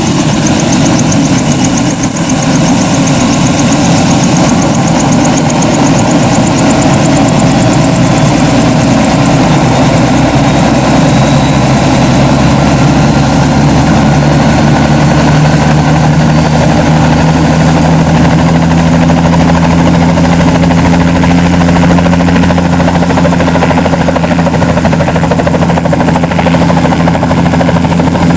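Light turbine helicopter with a two-blade main rotor running on the ground: a high turbine whine rises over the first several seconds, and the low rotor and engine sound grows stronger partway through as it powers up toward lift-off.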